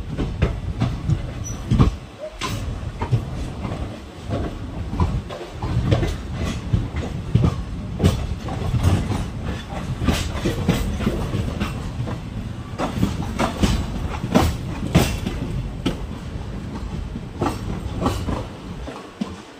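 Passenger train coaches running, heard from the coach side: a steady low rumble with irregular sharp clacks of the wheels over rail joints and points as the train takes the turnout onto a loop line.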